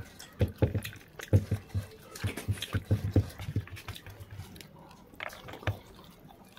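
Close-up eating sounds of a person chewing a mouthful of rice and snails with the mouth open: irregular wet smacks and chews, several a second at first, thinning out in the second half.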